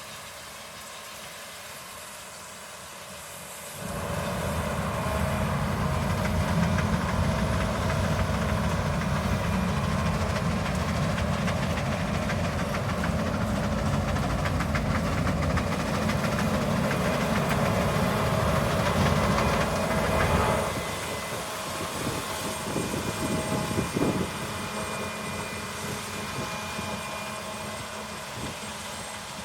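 Harvest machinery engine running, coming in loud with a heavy low rumble about four seconds in and dropping back at about twenty seconds, followed by a few knocks.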